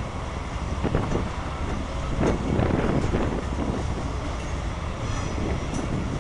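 Freight train cars rolling past, wheels clattering on the rails, loudest between two and three seconds in.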